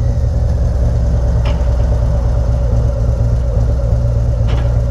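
Harley-Davidson Road Glide's V-twin engine idling steadily.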